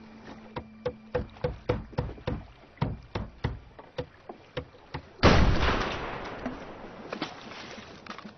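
Film sound effects of a boat on the sea: a run of hollow knocks, about two to three a second, then about five seconds in a sudden loud crash that dies away over a couple of seconds.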